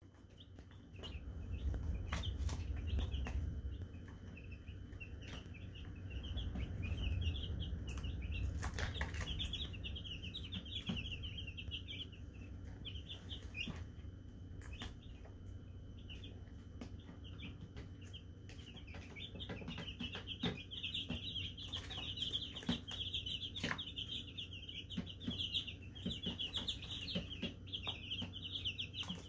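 A brood of baby chicks peeping, a steady chorus of quick high chirps that grows denser in the second half. A low rumble sits under it over the first several seconds, with scattered light clicks.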